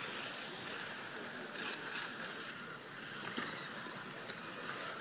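1/10-scale electric 2WD RC buggies racing on a dirt track: a steady hiss of small brushless motors and tyres on dirt, with a faint high whine.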